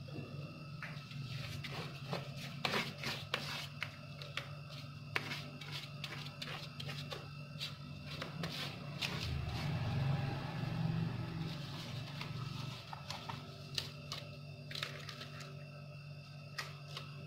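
Paper rustling and crackling, with irregular small taps, as a glossy patterned sheet is handled and smoothed by hand onto glued cardboard. A steady low hum runs underneath.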